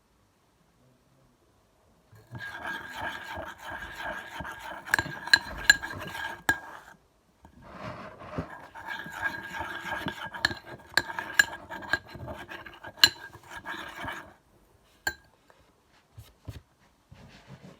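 A spoon stirring and scraping a thick mix of shampoo, talcum powder and toothpaste in a container, with sharp clinks against its side and a faint ringing. It goes in two long spells with a short pause between, then a few single taps near the end.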